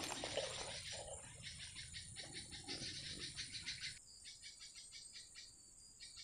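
Insects chirping faintly in a rapid, even pulsing rhythm, several pulses a second, growing fainter about four seconds in.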